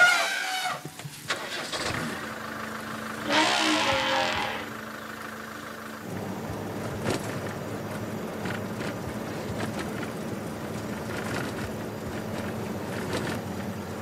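An elephant trumpets at the start and again, briefly, about three and a half seconds in. From about six seconds on, the steady running of a safari four-wheel-drive vehicle's engine with road noise, heard from inside the cab.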